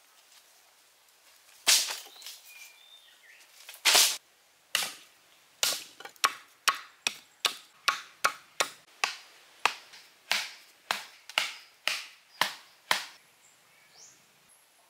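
Machete chopping wooden poles against a log block: a steady run of sharp strikes about two a second, after two louder knocks at the start.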